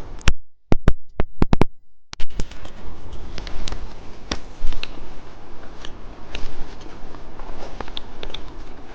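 Close-up candy and plastic candy packaging being handled: a few sharp separate clicks, then about two seconds in a steady, dense crackling with many small clicks.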